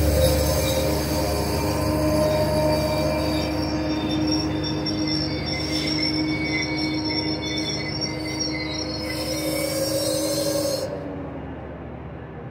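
Metrolink bilevel passenger coaches rolling slowly past as the train slows for its station stop, the wheels squealing with several steady high tones over a low rumble. The squeal fades and the highest tones cut off about eleven seconds in.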